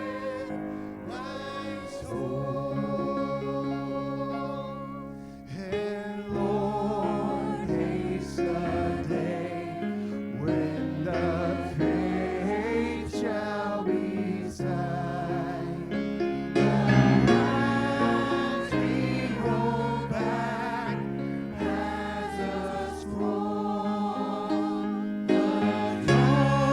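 Voices singing a Christian worship song in harmony over sustained instrumental accompaniment, with wavering held notes.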